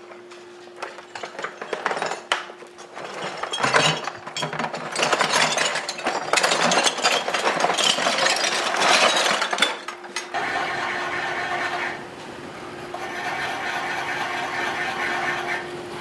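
Hard lumps of furnace charge (coke and iron) rattling and scraping as they are scooped and handled, an irregular clatter with many sharp clicks. After about ten seconds it gives way to a quieter, steadier hum with a whine that comes twice.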